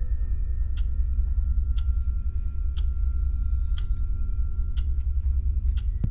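Clock ticking about once a second over a steady low droning hum, with faint high held tones: a tense soundtrack bed.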